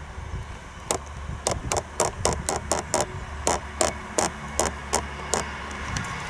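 Creaking tripod head giving an irregular run of sharp creaks and clicks, several a second, as the camera pans, over the low, steady rumble of a diesel multiple unit train passing at a distance.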